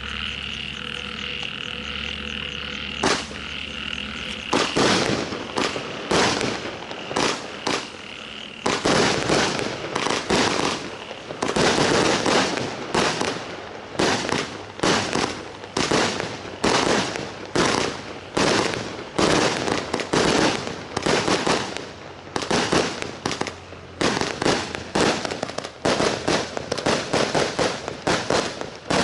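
A 100-shot firework barrage cake firing: a first shot about three seconds in, then a long rapid run of shots, about two a second, with their crackling bursts. A steady high-pitched background tone is heard before the barrage takes hold.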